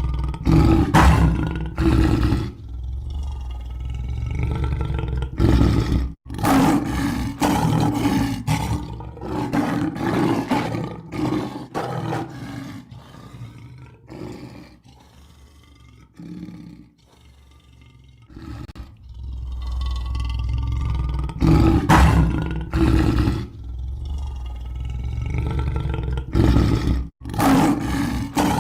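Lion roaring: a series of deep, loud roars and grunts, easing off to quieter grunts midway before the full roars build again.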